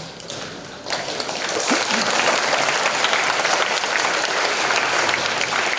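Audience applauding in a large hall: many people clapping together, starting suddenly about a second in and holding steady.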